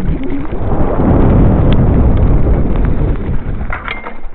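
Wind rumbling over the microphone of a bicycle going fast downhill, mixed with tyres rolling over a bumpy, leaf-covered dirt trail. It swells in the middle, and a few sharp rattles come near the end.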